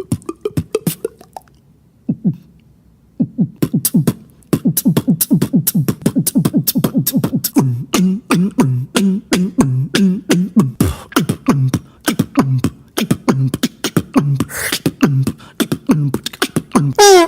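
Human beatboxing, mouth-made percussion. It opens with scattered clicks and short bass hits, pauses briefly, then from about four seconds in settles into a fast, steady groove. The groove has sharp clicks, kick-drum thumps and low hummed bass notes that drop in pitch on each stroke, plus a longer hissing snare-like sound near the end.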